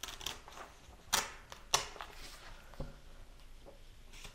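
Paper being handled: a notebook and loose sheets of lined paper rustling, with a few small clicks and two sharp papery snaps, the first a little over a second in and the second about half a second later.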